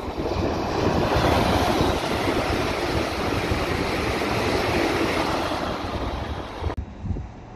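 A Southeastern Class 395 Javelin electric multiple unit passing by, a loud rushing noise without a clear engine note. It swells about a second in and holds steady, then cuts off suddenly near the end.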